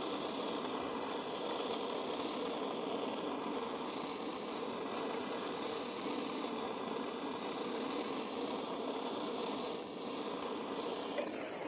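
Hand-held propane torch burning with a steady hiss while it is played over the fuel injector area and intake of a small air-cooled diesel engine, preheating it for a cold start. The hiss eases briefly about ten seconds in.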